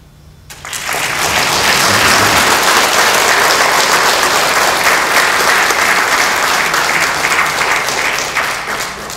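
Audience applauding, breaking out about half a second in and holding steady, beginning to die away near the end.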